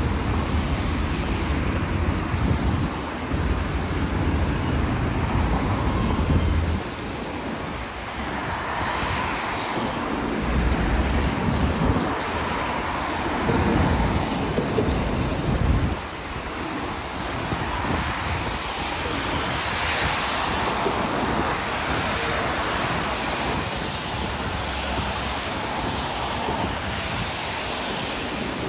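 Road traffic passing on wet asphalt, tyres hissing on the wet road surface. Wind buffets the microphone with a low rumble for the first several seconds and again in short gusts.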